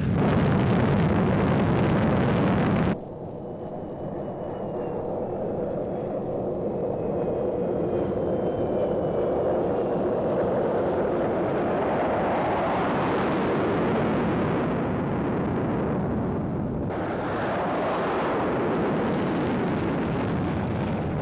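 YF-16's Pratt & Whitney F100 turbofan at high power, a loud, steady jet roar. It drops sharply about three seconds in, then builds again over the next ten seconds with a faint high whine on top, and jumps back up at another sudden step about seventeen seconds in.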